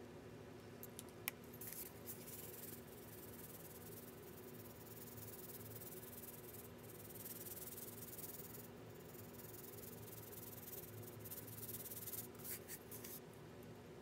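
Fine beach sand poured from a cup onto wet casting resin in a mold: a faint, steady hiss. There is a sharp click about a second in and a few scratchy ticks near the end.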